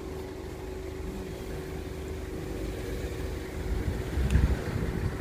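Road vehicle engines idling with a steady low hum; the rumble grows louder about four seconds in.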